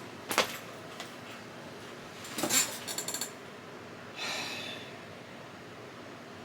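Short breathing and handling noises: a quick sniff about half a second in, a brief rattle with a faint clink around two and a half seconds, and a breathy exhale a little after four seconds.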